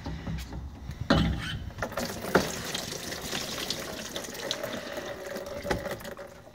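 Diesel fuel pouring and splashing out of a removed spin-on fuel filter into a plastic drain pan, a steady splashing pour after a few sharp knocks in the first couple of seconds.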